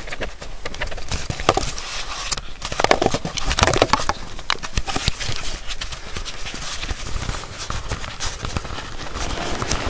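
Hurried footsteps thudding and swishing through dry swamp grass and brush, with handling knocks from the swinging camera and rifle.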